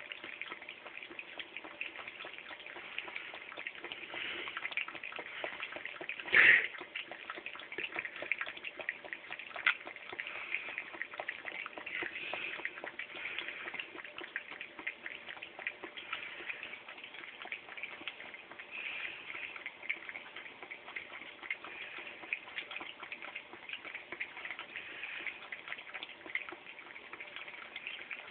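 A cat lapping water from a bowl: a steady run of small, quick wet laps and drips. One brief louder thump about six seconds in.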